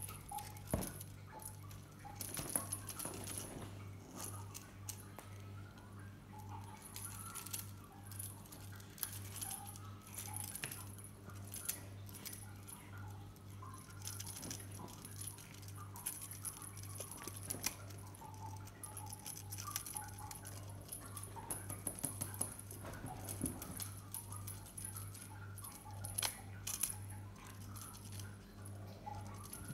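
A cat wand toy jingling and rattling in irregular bursts as cats bat and leap at it, over a steady low hum.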